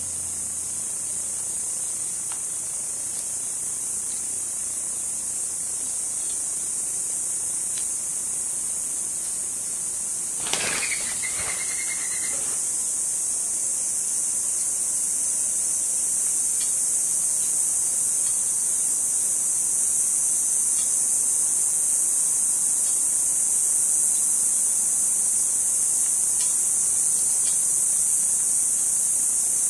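Insects calling in a steady, high-pitched, continuous chorus that grows slightly louder. About ten seconds in there is a brief click and a short chirp.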